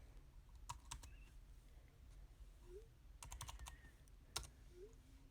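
Faint, quick taps and clicks in a few short clusters, like typing: a couple about a second in, a rapid run of several about three seconds in, and one sharper tap shortly after.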